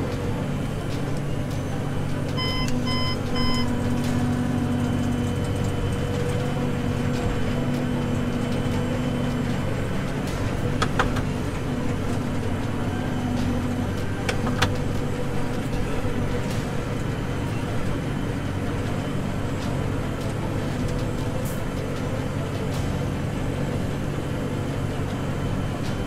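Tractor engine running steadily, heard from inside the cab while pulling a seed drill. About three seconds in, three short electronic beeps sound from the cab, and there are a couple of sharp clicks later on.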